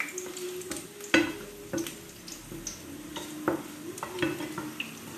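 Chopped garlic sizzling in hot oil in a frying pan while a wooden spoon stirs it. The spoon knocks and scrapes against the pan several times, loudest about a second in.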